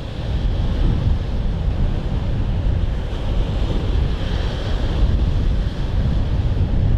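Strong wind buffeting the microphone in a gale, a heavy low rumble over the sound of rough sea and waves.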